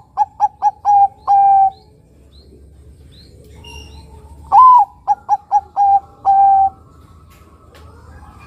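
Bangkok-type zebra dove (perkutut) cooing its song twice. The first phrase ends at the start in a run of quick short coos and a longer held note. About three seconds later a full phrase opens with a loud rising coo, then four quick coos and a held final note.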